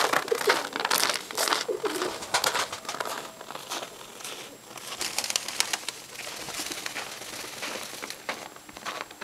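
Domestic pigeons cooing in a small loft, with a couple of short coos near the start, over a dense crackling rustle that is heaviest in the first few seconds.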